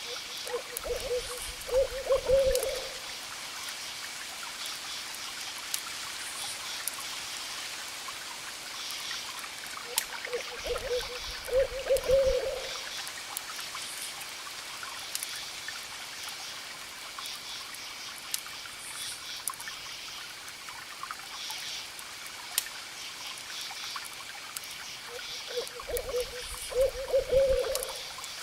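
An owl hooting: three short runs of a few low hoots each, roughly ten and fifteen seconds apart, these being the loudest sounds. Underneath runs a steady hiss of wood fire with scattered sharp crackles.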